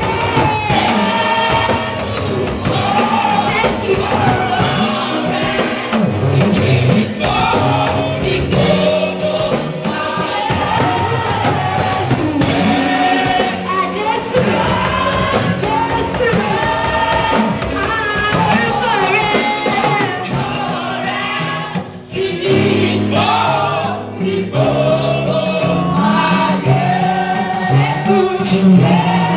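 A women's church choir sings a Yoruba gospel song in several voices into handheld microphones, backed by a live band with a drum kit keeping a steady beat. The music drops away briefly about two-thirds of the way through, then comes back in.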